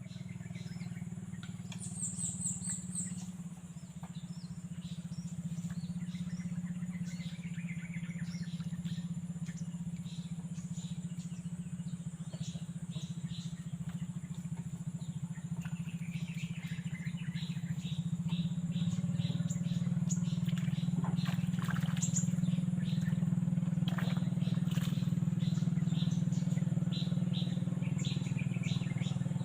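A small engine running steadily with a low hum that gets louder about two-thirds through, with birds chirping over it.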